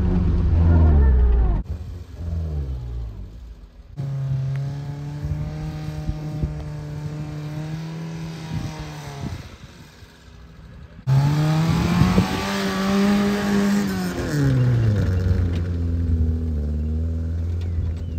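Fiat Uno's engine revving hard as the car drives through deep sand. It is held high for several seconds, eases off, then revs up again about halfway through and drops back to a lower steady note, with sudden breaks between stretches.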